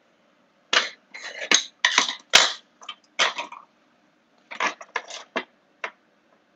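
Kitchenware being handled: a string of short clinks, knocks and scrapes of dishes and utensils. They come in two runs, one starting about a second in and a shorter one a little after the middle.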